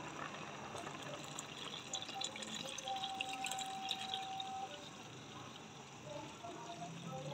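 Strained mutton stock being poured slowly into a pot of boiling yakhni, liquid splashing and trickling. A short steady tone sounds about three seconds in.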